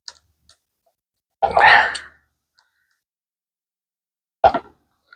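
Hand handling of a machine-embroidery hoop as its screw is tightened over stretched interfacing: a few small clicks, a louder half-second of noise about a second and a half in, and a short knock near the end.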